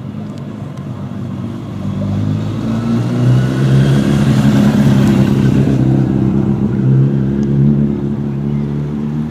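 Engine of a vehicle accompanying a bike race, running at a steady pitch close by. It grows louder about two seconds in and eases near the end, over the hiss of a bunch of racing bicycles going past.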